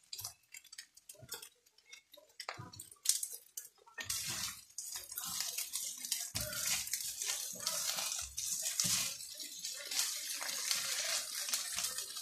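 Fried rice crackling in a hot frying pan with scattered pops. From about four seconds in, a spatula stirs and tosses the rice against the pan over a denser, continuous sizzle.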